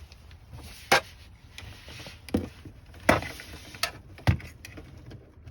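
Handling of a Fire TV Stick and its plug-in parts: about five sharp plastic clicks and knocks, spread unevenly, over light rustling.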